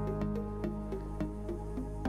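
Gentle instrumental background music: short notes over a steady low tone.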